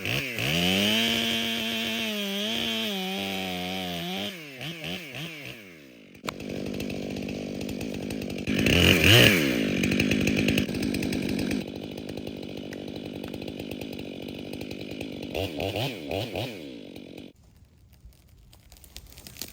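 Chainsaw at high revs cutting through a small tree, revs dropping and blipping around four seconds. It then runs through a second long cut from about six seconds and shuts off near seventeen seconds.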